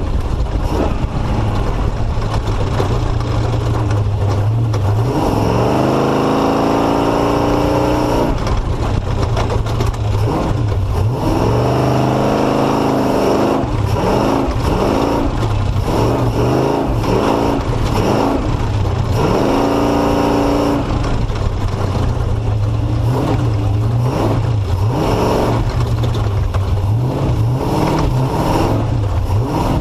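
Off-road race vehicle's engine heard on board, revving up and falling back again and again as it picks through slow, rocky, tight terrain, over a constant rumble and frequent knocks and rattles from the rough ground.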